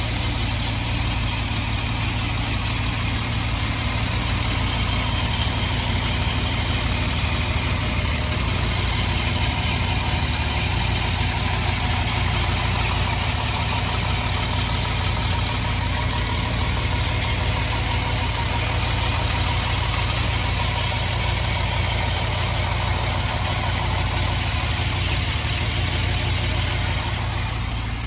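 1970 Mercedes-Benz 280SL's 2.8-litre straight-six with mechanical fuel injection idling steadily while warming up after a cold start, heard up close over the open engine bay.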